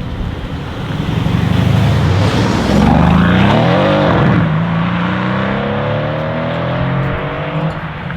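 Tuned Mercedes-AMG E63 S twin-turbo V8 accelerating: a low steady note, then a loud surge about three seconds in with the pitch climbing and dropping, followed by a long, steady climb in pitch that stops shortly before the end.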